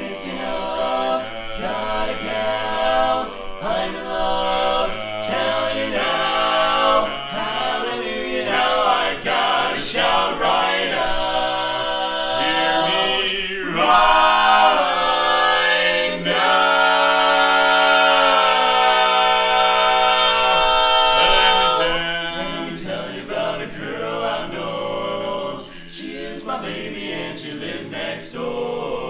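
Male barbershop quartet singing a cappella in four-part close harmony, the bass line sitting low under tenor, lead and baritone. The singing builds to a long, loud held chord about two-thirds of the way through, then goes on more softly near the end.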